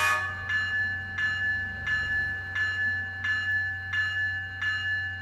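Diesel locomotive bell ringing steadily from the onboard sound speaker of an H0 scale ES44AC model, one strike about every 0.7 seconds. The horn cuts off right at the start.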